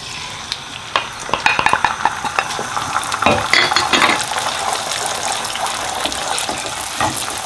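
Beaten eggs sizzling in hot oil in a frying pan as they are poured in and stirred, with a wooden spatula scraping and clicking against the pan, most busily in the first few seconds, then a steady sizzle.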